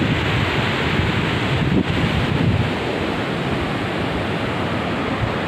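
A river rushing over rocks, a steady noise, with wind buffeting the microphone.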